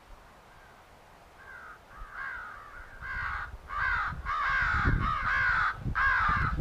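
Crow call sounding a rapid series of harsh caws, each a short falling note, starting faintly and growing louder and more frequent from about three seconds in, used to call crows in. A low rumble runs under the later caws.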